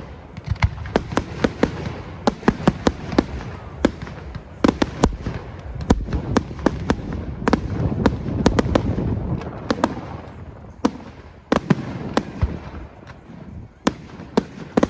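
Fireworks display: a rapid, irregular string of sharp bangs and crackles, with a low rumble swelling in the middle.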